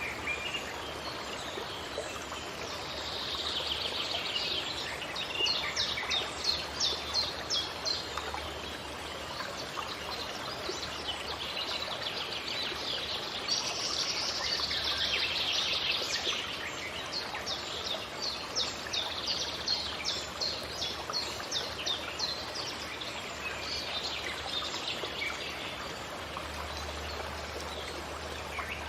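Songbirds singing over a steady rush of flowing water, with two runs of quick repeated high notes.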